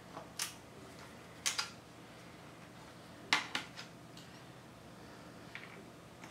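Screwdriver and screws clicking against the sheet-metal chassis of a Lenovo ThinkCentre Edge 92z all-in-one computer: a few sharp metallic clicks, spaced a second or two apart, with a quick cluster of them about three and a half seconds in.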